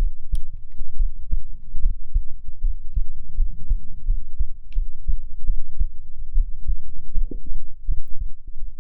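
A human heartbeat heard up close: a continuous run of low, dull thumps, with a few faint clicks now and then.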